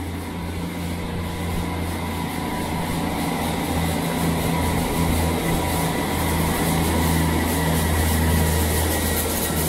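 Diesel multiple unit's engine running with a steady low drone that grows gradually louder.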